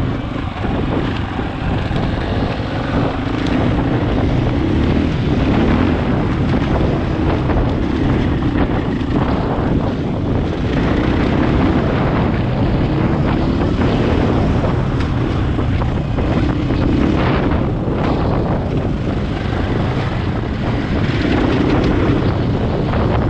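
KTM 500 EXC-F single-cylinder four-stroke dirt-bike engine running under load up a trail, its note rising and falling with the throttle, buried in heavy wind noise on the microphone.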